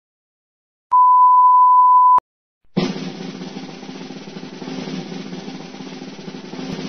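A steady high beep, the censor bleep, lasting about a second and cutting off abruptly, then after a short gap a long snare drum roll that keeps going, played as sound effects.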